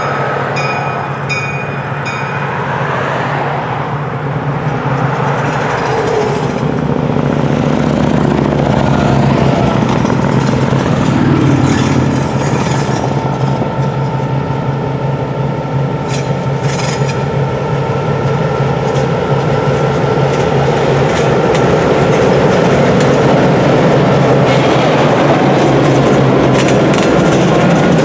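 EMD F-unit diesel locomotive passing close by under power, its engine running with a steady drone and a higher whine. A bell rings in the first two seconds, and a few sharp clicks of wheels over rail joints come about two-thirds of the way through as the freight cars roll past.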